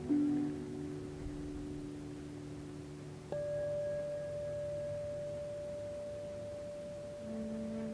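Ambient meditation background music of long, held pure tones. A new tone sets in just after the start, and a higher one enters about three seconds in and holds.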